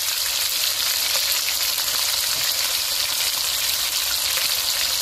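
Pork and chicken pieces frying in oil in a nonstick pan, browning: a steady sizzle with light crackling.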